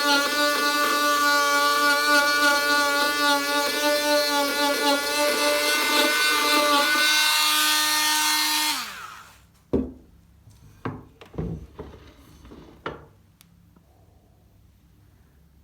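A small electric power tool runs steadily with a rough grinding hiss, as it works rust off a metal screwdriver bit. About nine seconds in it is switched off and winds down, falling in pitch. A few sharp knocks and clicks of handling follow.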